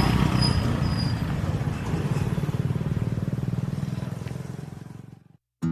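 A small engine running steadily with some wind noise, fading out over the last seconds.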